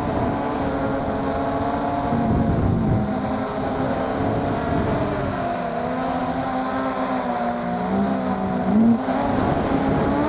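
MJX Bugs 3 quadcopter's brushless motors and propellers buzzing close to the gimbal camera slung beneath it, the pitch rising and falling with the throttle, with a brief louder surge near the end.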